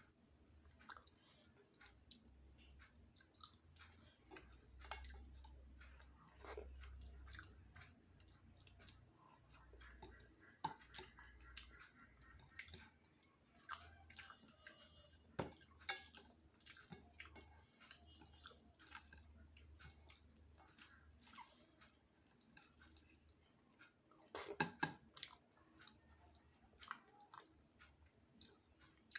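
A person chewing food with faint mouth smacks and scattered small clicks. A sharper click comes about fifteen seconds in and a short cluster near twenty-five seconds.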